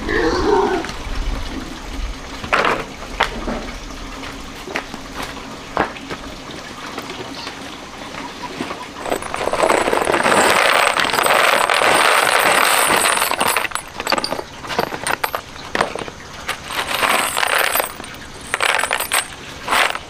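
Loose dark granular material poured from a paper sack into a woven bamboo basket: a steady rushing hiss of about four seconds near the middle, with grains pattering into the basket. Scattered clicks and rustles of the bag and basket being handled come before and after, with a few shorter pours near the end.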